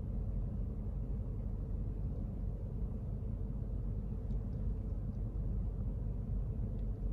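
Toyota Land Cruiser 200's V8 engine idling in park, heard from inside the cabin as a steady low rumble.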